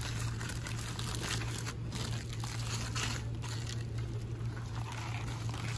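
Aluminium foil crinkling and rustling as a foil-wrapped sandwich is unwrapped by hand, over a steady low hum.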